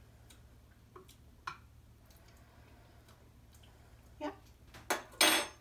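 A person tasting soup off a spoon: faint mouth clicks and lip smacks, then near the end a short hum followed by two loud breathy bursts.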